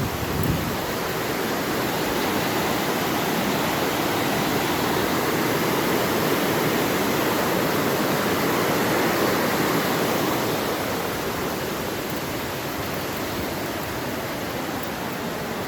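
Steady rushing of falling water, a loud even roar with no distinct splashes, swelling a little midway and easing slightly near the end.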